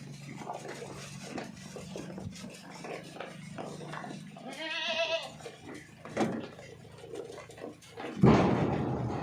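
Goat bleating: one wavering, pitched bleat about five seconds in, then a louder, harsh, rasping sound starting near the end. A steady low hum sits under the first half.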